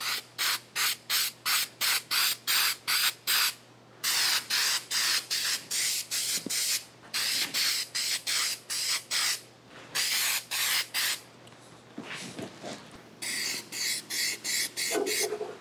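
Aerosol spray-paint can hissing in short, quick bursts, about three a second, with a couple of brief pauses; the spraying stops about eleven seconds in, leaving fainter, scattered sounds.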